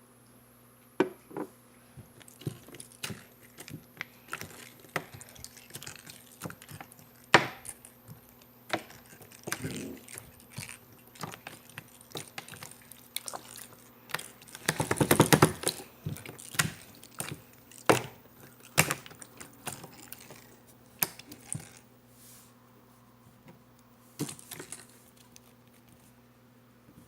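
Jiggly slime being squeezed and poked by hand, giving off irregular sticky clicks and pops. A dense run of crackling comes about 15 seconds in, and the clicks thin out near the end.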